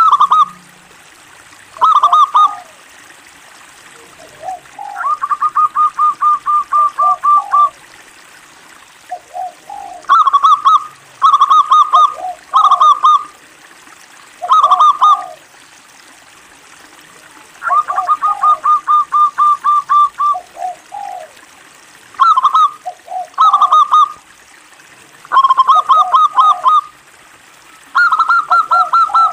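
Zebra dove (local perkutut) singing: repeated phrases of short staccato coos, with lower notes between them. Twice the coos run on in a long, even string of about four or five notes a second.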